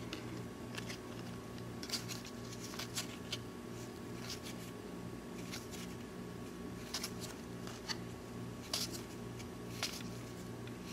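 1993 Donruss cardboard baseball cards being flipped one by one from hand to hand, each card giving a short soft flick or snap at irregular intervals. A steady low hum runs underneath.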